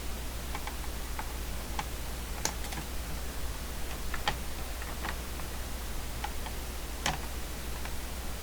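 Scattered small clicks and ticks, spaced irregularly, from hand tools and parts being worked while meters are freed from a CB radio chassis, over a steady low hum.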